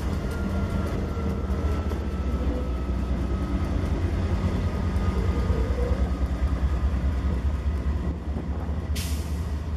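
Diesel-electric freight locomotives passing at close range: a loud, steady deep engine rumble with a faint, slowly falling whine. A sudden hiss starts about nine seconds in.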